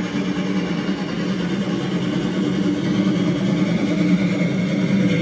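Battery-powered toy locomotive's small electric motor whirring steadily as it pulls wagons along wooden track, with the wheels rolling on the wood.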